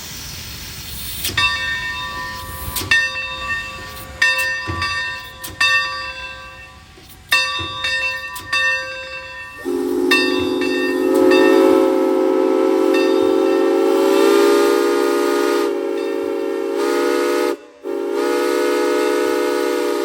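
Steam locomotive ATSF 3751: its bell rings with a stroke about every second and a half, then about halfway through its chime steam whistle sounds one long blast, broken off for a moment near the end and sounded again.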